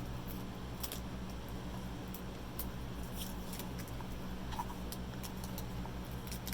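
Scattered light clicks and small handling sounds over a steady low hum.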